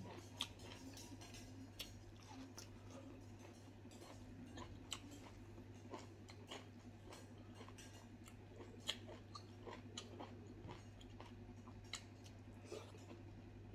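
Faint chewing and mouth sounds of a person eating fresh greens by hand, with scattered small clicks and smacks over a low steady hum.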